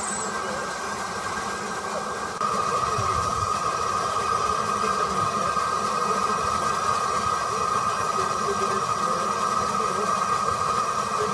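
Stanier Black 5 steam locomotive standing at a platform with a steady hiss of steam, louder from about two and a half seconds in, over faint voices.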